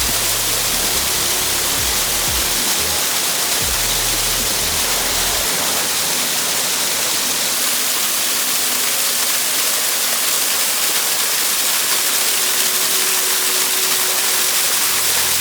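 Waterfall, a steady, even rush of falling water. Soft background music with long held notes lies underneath, and there are a few low bumps in the first five seconds.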